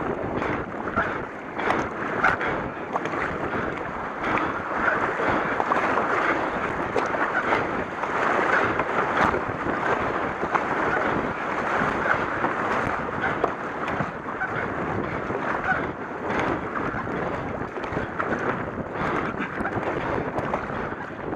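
Repeated paddle strokes splashing and river water rushing around a K1 racing kayak as it runs over shallow riffles, with wind buffeting the microphone.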